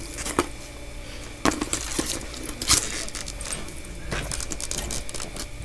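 Handling noise from a handbag and its wrapping being picked at: a few separate sharp clicks about a second apart over a faint rustle.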